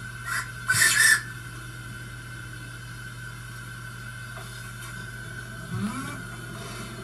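Miniature live-steam locomotive, a model of a Midland Railway Johnson Spinner, standing in steam. A short hiss of escaping steam comes about a second in, over a steady low hum and faint hiss.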